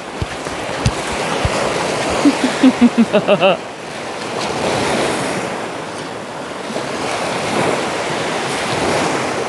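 Sea surf washing on the shore, swelling and ebbing, with wind buffeting the microphone. A few seconds in there is a short run of about six quick, pitched, voice-like yelps.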